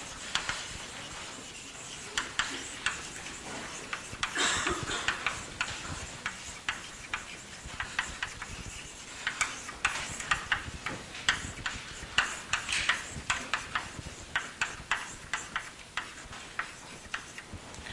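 Chalk writing on a blackboard: a steady run of light taps with short scratchy strokes now and then.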